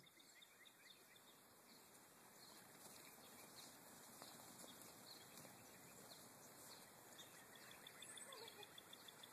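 Near silence: faint outdoor background hiss with a few faint bird chirps.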